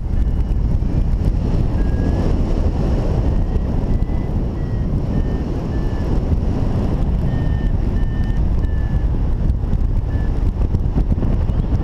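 Wind rushing over the microphone in flight, with a paragliding variometer giving runs of short beeps whose pitch shifts from beep to beep, signalling that the glider is climbing.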